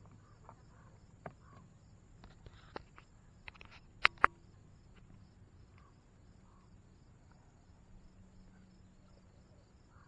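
Crickets chirping steadily in the background, with a few small handling clicks. Two sharp clicks close together about four seconds in are the loudest sounds.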